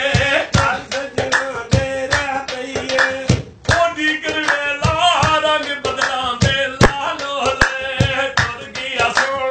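A man singing a Punjabi folk song, accompanied by rhythmic hand strikes on a steel pot played as a drum, with a short break about three and a half seconds in.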